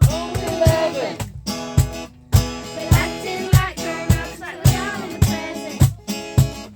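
Background music: a guitar band song with strummed guitars over a steady drum beat.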